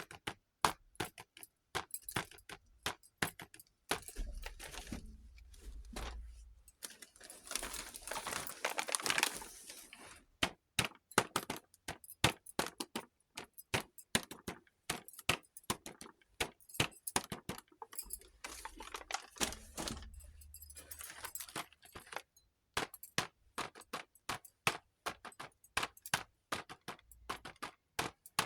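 Small plastic and metal pieces of a miniature toy kitchen set being handled: rapid light clicks and clinks. There are two longer stretches of continuous noise, one about a third of the way in and one past two-thirds.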